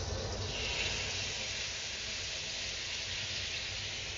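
Wet pea-protein taco mixture sizzling in a very hot oiled wok as it is stirred, a steady hiss that brightens about half a second in; the wok is hot enough to send up smoke.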